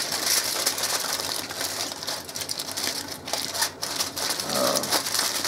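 Aluminium foil crinkling and crackling as gloved hands fold and crimp it closed around a foil pack, with a dense run of small crackles.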